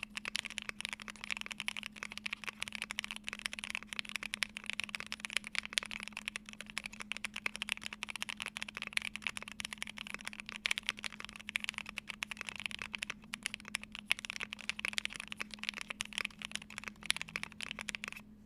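Fast, continuous typing on a Polaris mechanical keyboard with lubed Banana Split linear switches, a polycarbonate plate and ePBT keycaps: a dense stream of key clacks that stops right at the end.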